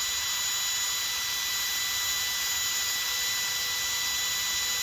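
Metabo HPT DV36DA 36-volt cordless hammer drill running at no load in low speed, about 490 RPM, with a steady, even motor whine.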